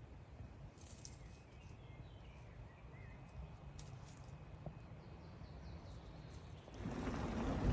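Quiet woodland background with faint, high bird chirps and calls in the first half. Near the end it gives way to loud wind rumbling on the microphone.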